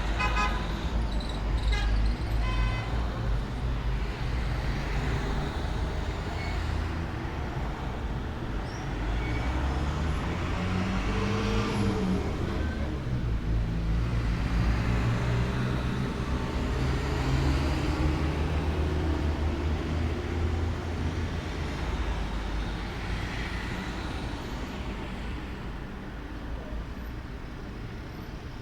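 A motor vehicle's engine running steadily, its pitch shifting up and down, then fading toward the end. Short bird chirps sound in the first few seconds.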